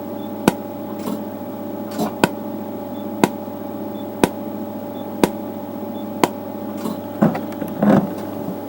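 ND:YAG laser firing single pulses about once a second. Each shot is a sharp crack as the beam blasts oil residue and rust off a metal tool, over a steady hum. A few softer knocks and rustles come near the end.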